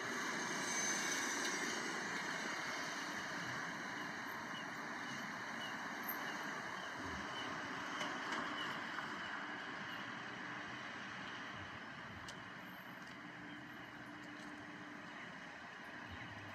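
City transit bus going by, its engine and tyre noise loudest about a second in and then slowly fading into steady street traffic.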